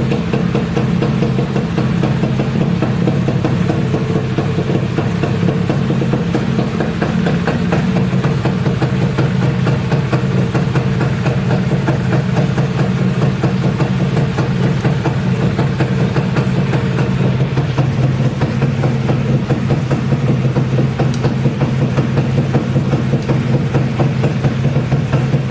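Modenas Dinamik 120 motorcycle's single-cylinder engine idling steadily in neutral, being warmed up after standing unused for a long time.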